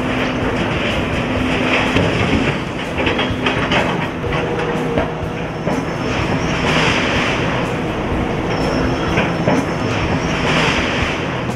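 Heavy demolition machinery: a diesel excavator running while debris crunches and clatters, with a steady low engine hum underneath and the noise swelling louder a few times.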